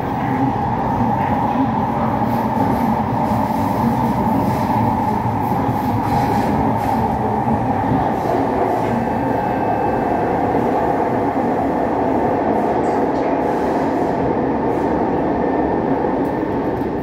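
Interior running noise of an SMRT C151 train moving through a tunnel: a steady, loud rumble of wheels on rail and running gear, with a faint high whine briefly about halfway through.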